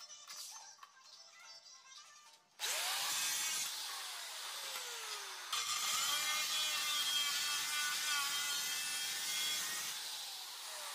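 Handheld electric tile cutter (marble cutter) with a diamond blade cutting through a ceramic wall tile: the motor starts suddenly about two and a half seconds in and runs with a high whine, growing louder about five and a half seconds in. Before it, a few light clicks of tiles being set down.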